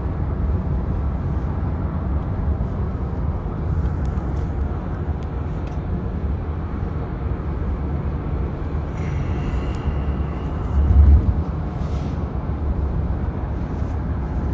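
Road noise inside a moving car's cabin: a steady low rumble of tyres and engine, with a short low thump about eleven seconds in.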